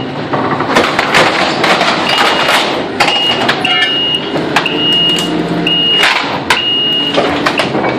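Kubota SVL90 compact track loader's diesel engine running while it tears out wooden shelving, with repeated cracking and splintering wood and knocks. Its reverse beeper sounds a high beep about once a second from about two seconds in, as the machine backs up.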